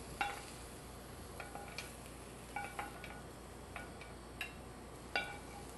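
Metal kitchen tongs clinking against a skillet and a ceramic plate as cooked shrimp is lifted out of the pan: about eight light clinks spread out, each with a short metallic ring.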